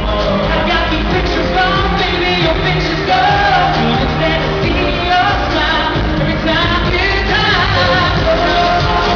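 Pop song performed live: a male lead vocal sings over a full band backing with a steady bass line.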